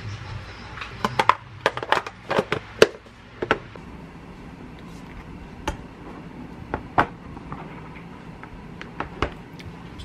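Plastic lunchbox and its lid being handled: a quick run of sharp clicks and knocks for a couple of seconds, then a few single clicks spaced a second or more apart.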